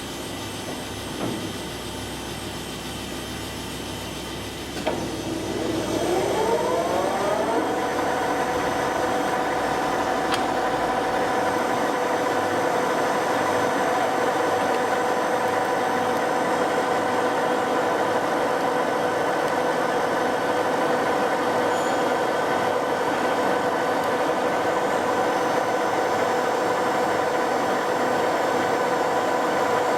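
TOS SUI 40 lathe running. About five seconds in there is a click, and then its whine rises in pitch for a couple of seconds as the spindle speeds up. It then settles into a steady, louder whine.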